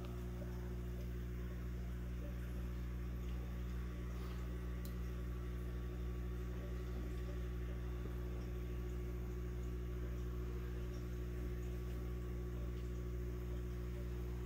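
Steady low electrical hum of an aquarium pump, with a faint hiss above it.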